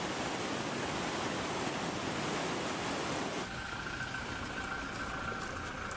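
Muddy floodwater rushing in a swollen river: a steady, dense rushing noise. About three and a half seconds in it cuts to a quieter background with a faint steady high tone.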